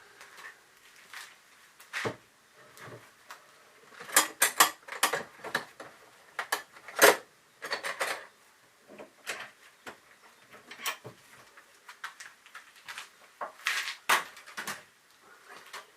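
Irregular clicks, knocks and clattering of hard objects being handled, with louder clusters of clatter now and then.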